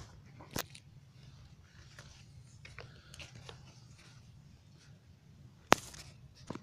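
A few sharp clicks and knocks of handling, with one loud knock near the end, over a low steady hum.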